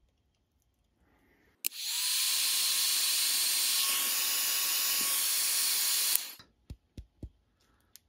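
Electric heat gun switched on, its fan coming up to speed with a steady rush of hot air and a thin whine for about four and a half seconds, then switched off, shrinking heat-shrink tubing over a soldered wire splice. A few light clicks follow.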